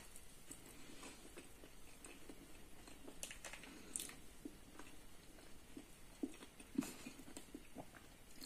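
A person chewing soft food close to the microphone, with faint wet mouth clicks and smacks. A few sharper clicks come about four and about seven seconds in.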